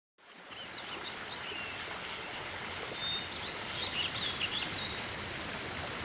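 Outdoor nature ambience fading in: a steady rushing hiss with small birds chirping and twittering over it, the chirps quick and high, busiest about halfway through.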